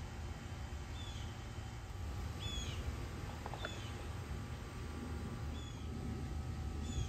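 A small bird chirping: short high chirps, repeated every second or two, over a steady low rumble. A few faint plastic clicks in the middle.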